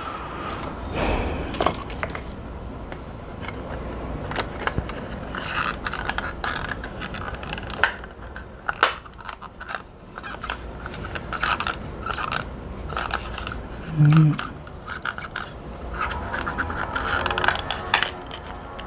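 Hands working on a disassembled computer mouse: scattered small plastic clicks and taps with some scraping and rubbing.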